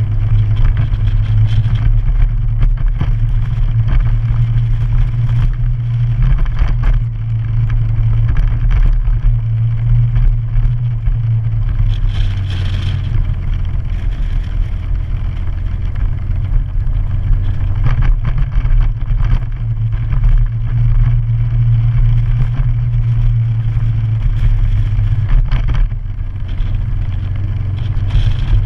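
Motorcycle running at a steady road speed while being ridden, the sound mostly low-pitched and holding at an even level throughout.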